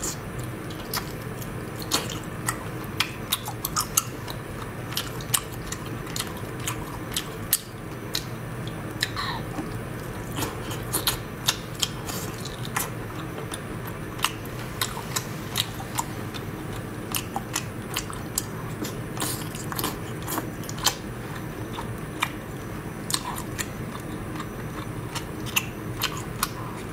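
Close-miked eating of whole small octopus in chili sauce: wet biting, chewing and lip smacks, with many sharp clicks scattered throughout over a low steady hum.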